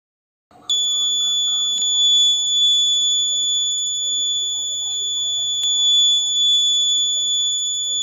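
Piezo buzzer of a homemade battery-powered fire alarm sounding one steady, high-pitched continuous tone that starts about half a second in: the alarm set off by a candle flame heating its sensor.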